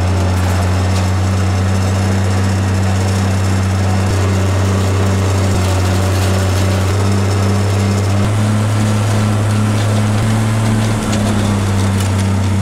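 Old tractor engine running steadily under load, pulling a manure spreader as it throws out manure. The engine's pitch shifts slightly a little past halfway.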